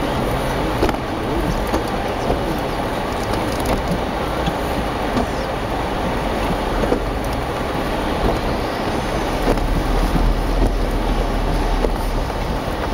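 Jeep Wrangler JK Unlimited driving along a snowy trail: a steady rumble of tyres, engine and drivetrain with a few faint knocks. By the driver's account a spider gear in its front differential is going out.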